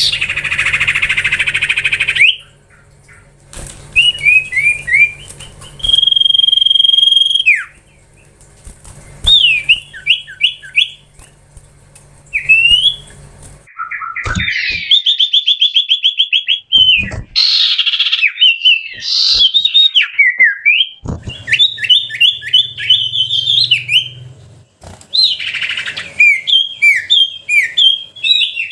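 Common iora (cipoh) singing a varied song of repeated slurred whistles, one long held whistle and quick rattling trills, broken a few times by short harsh rasping chatters.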